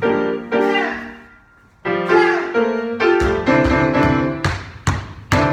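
Piano chords struck one after another in an uneven rhythm, each ringing out and fading, with a short lull about one and a half seconds in.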